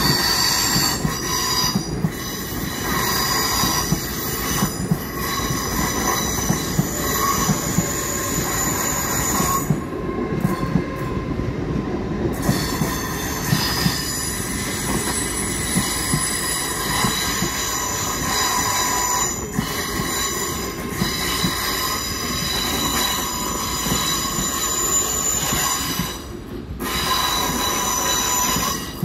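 GWR Hitachi intercity train moving slowly along the platform, its wheels squealing in several high whistling tones that come and go, over a steady rumble with scattered clicks. The squeal drops out briefly about ten seconds in and again near the end.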